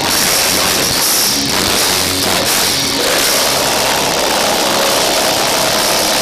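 Folk metal band playing live and loud: electric guitars, bass and drums in a dense, continuous wall of sound.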